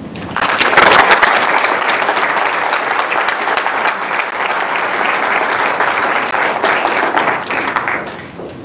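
An audience applauding at the close of a talk: dense clapping that starts at once and dies down near the end.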